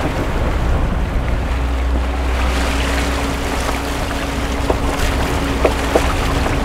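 Mercury outboard motor running steadily as the boat moves through choppy water, with wind on the microphone and water washing along the hull. A few light knocks come in the second half.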